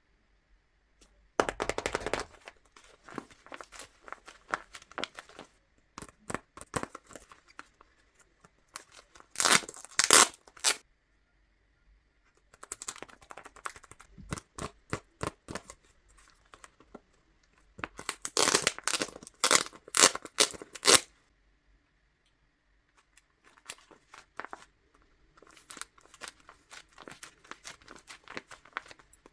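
Handmade paper blind bag being torn open and crinkled by hand: bursts of crisp paper crackling and tearing separated by short pauses, loudest about a third of the way in and again about two-thirds in.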